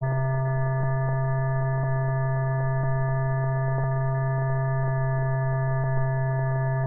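Steady low hum with several higher overtones, and a faint click about once a second, on the soundtrack of an old 1961 film print.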